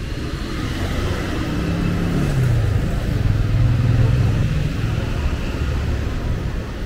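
A motor vehicle passing close by on a city street, its engine growing louder to a peak about three to four seconds in, then fading, over general traffic noise.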